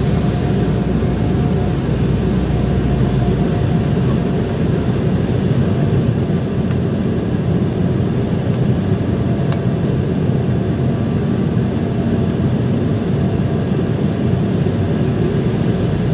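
Steady cabin noise of an Embraer 190 airliner in descent, heard from inside the cabin: a low, even rush of its two GE CF34 turbofan engines and the airflow over the fuselage.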